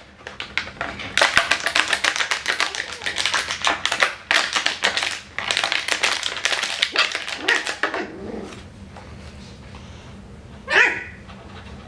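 Rapid clicking and tapping for about eight seconds, then a single short yip from a Coton de Tulear puppy near the end.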